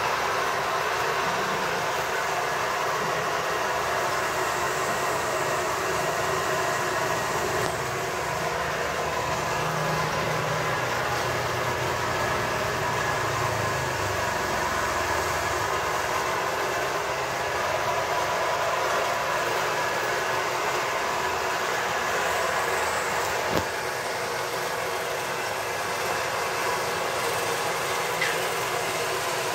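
A machine or engine running steadily close by: a loud, unchanging hum that starts abruptly and never changes pitch.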